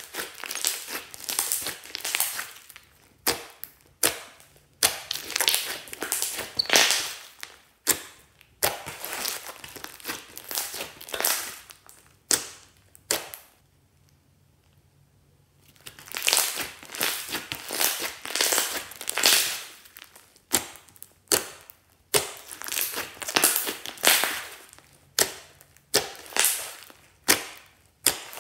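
Glossy slime squeezed, pressed and stretched by hand, giving wet crackling with many sharp clicks and pops in irregular bursts. It goes quiet for about two seconds roughly halfway through, then starts again.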